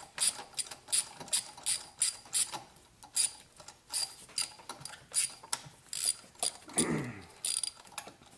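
Hand ratchet clicking in short runs as a spark plug is worked loose. The clicks come in quick bursts of a few at a time with short pauses between them.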